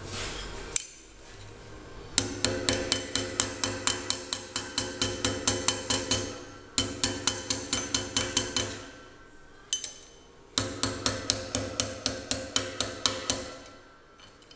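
Small hammer tapping on a metal part clamped in a bench vise, in three quick runs of ringing taps, about four or five a second. The corners of the part are being peened back around to close up and tighten a hole.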